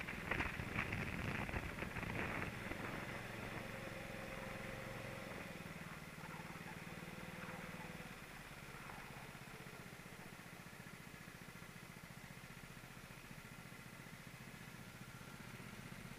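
Go-kart engine running, heard from on board the kart, with rough, crackly buffeting in the first couple of seconds. The engine note steps down about six and then eight seconds in as the kart slows, and then runs on evenly at low revs.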